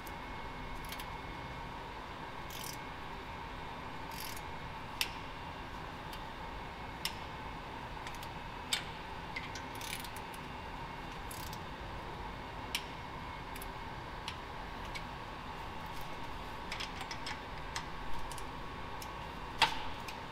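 Hand tools working on engine bolts: sharp metal clicks and taps at irregular intervals, the loudest near the end, over a steady shop hum.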